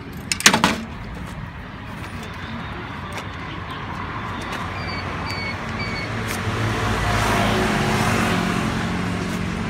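Metal clanks as the YouBike rental bike is handled at its dock, then three short electronic beeps from the YouBike dock's card reader registering the return and fare. A vehicle then passes on the street, swelling up and fading.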